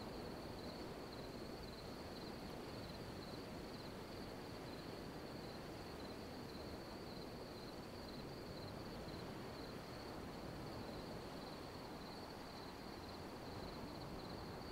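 Faint night-time forest ambience: a steady, high, slightly pulsing insect trill over a low hiss.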